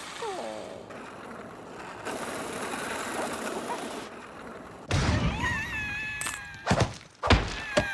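Cartoon sound effects: a short falling glide, then several heavy thuds and knocks in the second half, with a cartoon character's wavering, drawn-out vocal cries between them.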